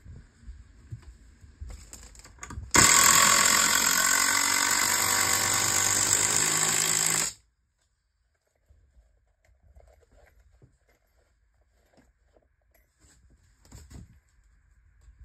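Cordless impact driver running steadily for about four and a half seconds, driving a toe screw at an angle through the foot of a wall stud; it starts and stops abruptly. A few faint clicks and taps follow.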